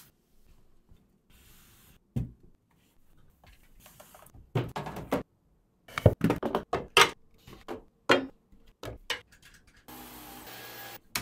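Cleaning and handling sounds at a desk: a string of sharp clicks and knocks, the loudest in the middle, then about a second of a cordless stick vacuum running near the end.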